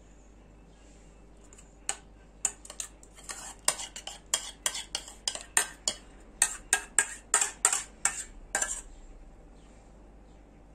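A metal spoon scraping and clinking against the inside of a saucepan as the last of a thick milk pudding is scraped out. The scrapes come quickly, about three a second, starting about two seconds in and stopping about a second before the end.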